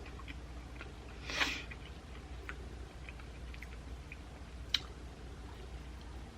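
A person chewing food with soft wet mouth clicks, close to the microphone. A brief louder noisy sound comes about a second and a half in, and a single sharp click near the end.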